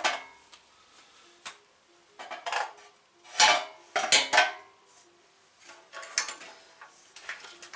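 Recoil starter cord of a WEN 4050 generator pulled several times in quick succession, turning the small engine over during a compression test. Each pull is a short rasping burst with some metallic clatter.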